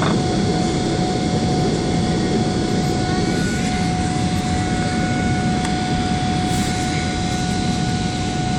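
Steady jet engine and airflow noise inside the cabin of a Boeing 777-300 airliner in flight: an even rush with a constant whine over it.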